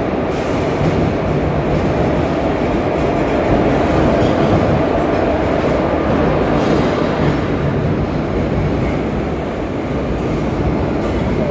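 Passenger train hauled by an Indian Railways WAP-4 electric locomotive rolling past along a station platform: a steady, loud noise of the locomotive and coaches' wheels running on the rails.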